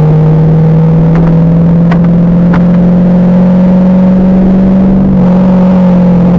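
Firehawk's LS1 5.7-litre V8 pulling hard under load, its pitch rising slowly, with a slight dip about five seconds in. The recording is very loud and of poor quality.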